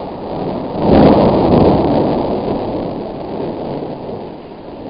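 Thunder: a loud clap about a second in that rumbles and slowly dies away over the next few seconds, over a steady hiss.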